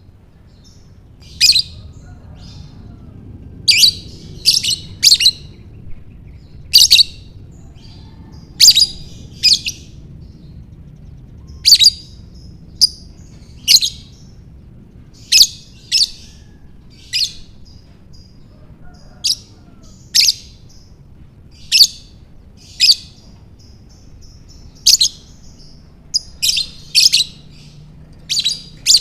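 Lovebird chirping: short, sharp, high chirps one at a time, about every one to two seconds, now and then two or three in quick succession.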